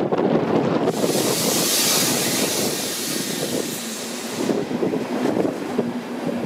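ÖBB electric locomotive with double-deck CityShuttle coaches running into the platform past the listener: a loud hiss as the locomotive goes by about a second in, fading after a few seconds into the steady rumble of the coaches rolling past.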